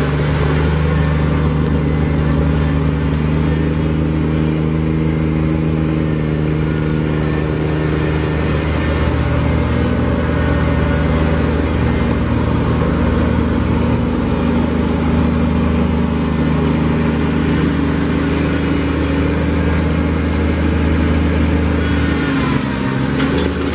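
Kubota BX25D compact tractor's three-cylinder diesel engine running steadily. Near the end its pitch briefly dips and comes back up.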